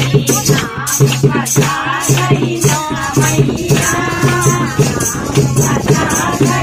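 A group of women singing a folk or devotional song together, with a steady hand-drum beat of about two strokes a second and rhythmic jingling from a tambourine or rattle.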